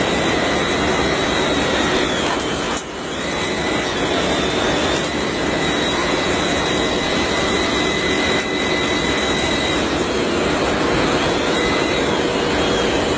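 Steady machine running noise with a thin high whine that holds and bends slightly in pitch now and then; it dips briefly about three seconds in.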